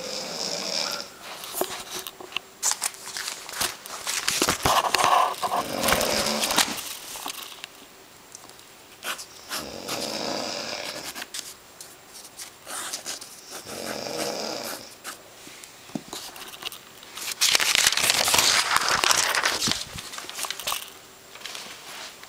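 Snoring in sleep: about five long, noisy breaths, one roughly every four seconds.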